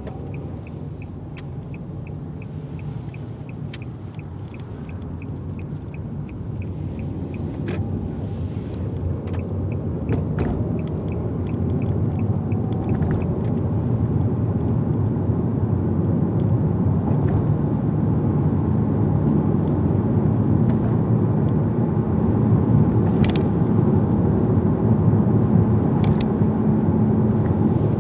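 Road and engine noise heard inside a car's cabin, growing steadily louder as the car picks up speed. A turn-signal indicator ticks about two to three times a second for the first several seconds, and again from about ten to thirteen seconds in.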